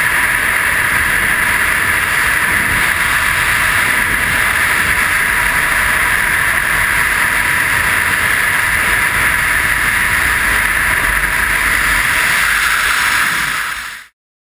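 Freefall wind rushing over a camera microphone during a skydive: a loud, steady rush that fades out and stops near the end.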